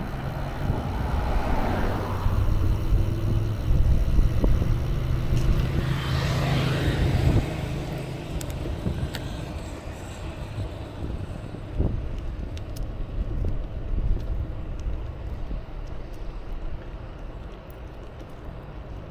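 Cars passing on a road: one swells and fades at about two seconds, another at about six seconds, over a low engine drone and rumble. After about seven seconds it drops to quieter road noise with faint light ticks.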